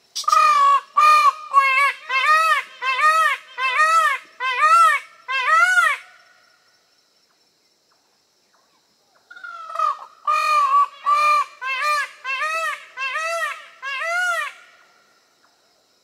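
Indian peafowl giving two rapid series of loud, nasal, honking calls, about nine in each series, separated by a pause of a few seconds. Each call rises and falls in pitch.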